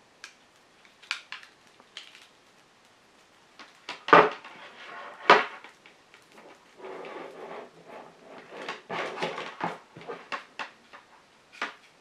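A power adapter cable being unwound and handled: scattered light clicks and taps, two louder knocks about four and five seconds in, and a soft rustle later on as the cable is laid out.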